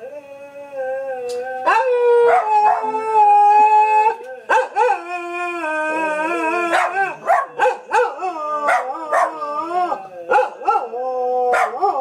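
Dog howling: a blue merle Australian shepherd gives long, wavering howls, one held steady for about two seconds near the start, while short sharp yips and barks from a Jack Russell terrier cut in again and again.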